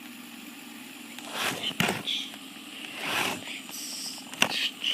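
Fidget spinners being handled and set spinning: a few sharp clicks and rustling swells over a faint steady hum.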